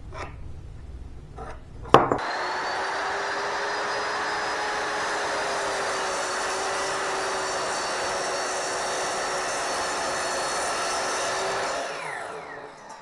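An electric power tool switches on with a sharp click and runs steadily on wood for about ten seconds, then is switched off and winds down.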